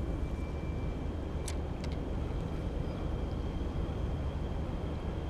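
Steady low rumble of outdoor air, with two light clicks about a second and a half in and then a thin, steady whine as a spinning reel is cranked through a fast surface retrieve.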